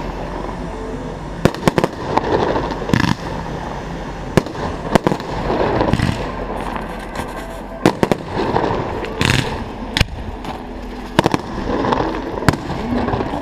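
Fireworks display: aerial shells bursting with sharp bangs, irregularly every second or so and sometimes two or three in quick succession, over the chatter of watching spectators.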